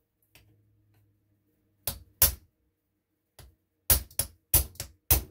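Small hammer tapping a pin punch to drive a pin out of an RWS 54 Air King air rifle's action. Two sharp taps come about two seconds in, then a faint one, then a quicker run of about five taps from about four seconds in.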